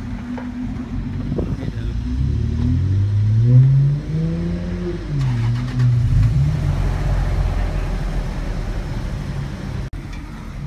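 Off-road 4x4's engine revving as it crawls over boulders. The revs climb, drop back and climb again, over a steady low rumble.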